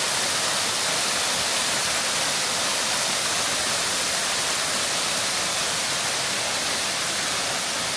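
Waterfall cascading off shale rock walls into a creek bed, a steady rushing hiss of falling water.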